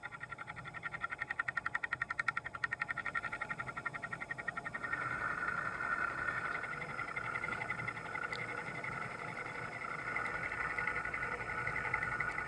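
Manual machine tool cutting a metal workpiece, a steady whine with rapid pulsing for the first few seconds that then evens out and stops abruptly at the end.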